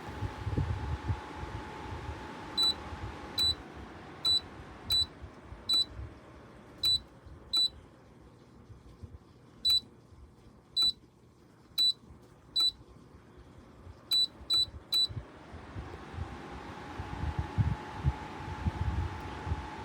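Bladeless tower fan running, with about fourteen short high-pitched beeps from its control panel at uneven spacing as its buttons are pressed. The fan's hum fades away through the middle, as the fan is turned down, and rises again near the end as it speeds back up.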